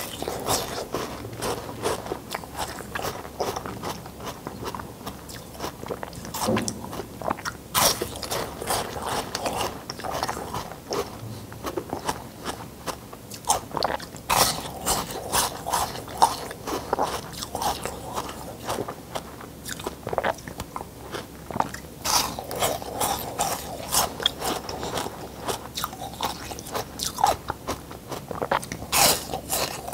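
A block of ice bitten and crunched between the teeth, close-miked: a continuous run of sharp, crackling crunches and chewing, some bites louder than the rest.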